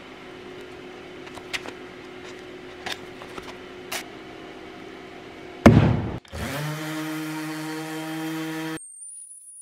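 A few small handling clicks over a quiet hum, then a sudden loud noise a little past halfway. A DeWalt 18V brushless random orbital sander then spins up on the solid oak benchtop and runs steadily for about two seconds before cutting off abruptly.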